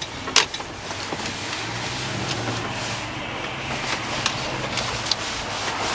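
Truck engine running with road noise while driving: a steady low hum, a little stronger in the middle, under a noisy rush, with a few scattered clicks.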